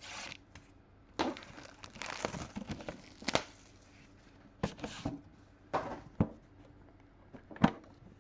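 Packaging of a trading-card hobby box being torn open and crinkled by hand, in short rustling spells broken by a few sharp clicks.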